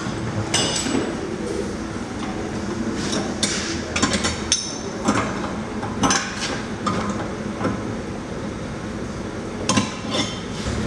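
Steel press-tool pieces of a trailing-arm bush press kit clinking and knocking against each other and the rear trailing arm as they are fitted by hand: scattered, irregular metallic knocks over a steady low hum.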